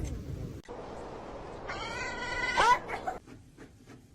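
A domestic cat meowing once, a single drawn-out meow about two seconds in, over a faint steady hiss.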